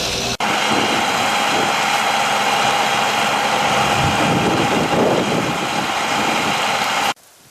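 A heavy engine running steadily with a hiss over it. It breaks off for an instant less than half a second in and stops abruptly near the end.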